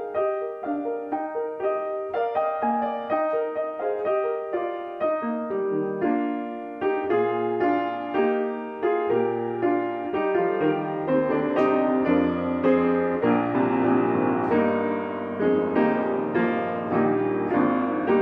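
Solo piano playing a gentle flowing melody over running notes, with bass notes joining about a third of the way in and the playing growing fuller and louder after that.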